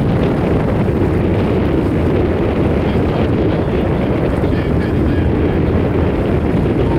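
Steady wind buffeting the microphone, mixed with the rush of sea water around a boat under way.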